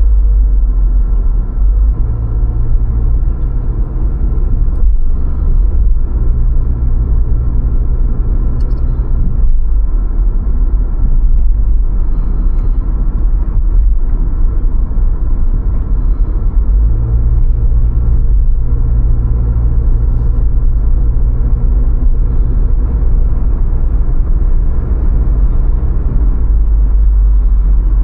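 A car driving, heard as a steady, heavy low rumble of engine and road noise. A deeper hum comes in for a few seconds at a time, at about 2 seconds in, at about 6 seconds in and from about 17 seconds in.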